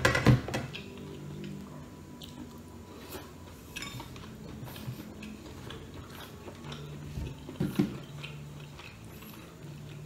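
Bamboo skewers and dishes clinking and knocking on a table as food is picked up and dipped into small sauce bowls, with a louder knock at the start and another about three-quarters of the way through.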